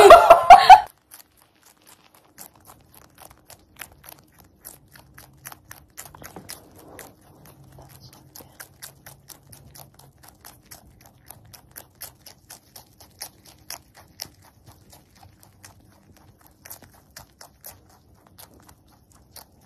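Rabbit chewing a mouthful of leafy greens close to the microphone: a long run of small, crisp crunching clicks, several a second.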